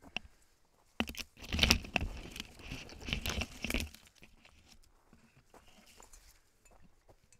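Leaves and twigs rustling and scraping against the camera as it is carried through dense scrub, loudest for about three seconds from a second in, then fading to light footsteps on the dirt trail.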